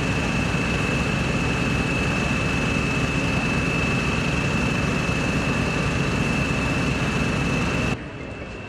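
Engine running steadily: a constant high whine over a heavy rumble and hiss. It cuts off abruptly near the end.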